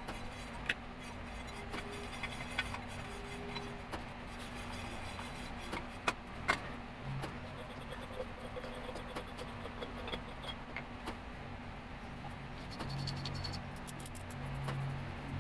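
Light handling noises of coilover parts: scattered small clicks and knocks as a coilover is moved, wiped and has its cap pulled off, with two sharper taps about six seconds in, over a faint low hum.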